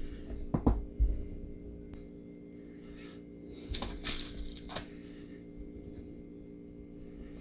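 Small hand tap being worked into a diecast metal casting: a couple of soft knocks in the first second and a cluster of short, light metal scrapes around four seconds in, over a steady low hum.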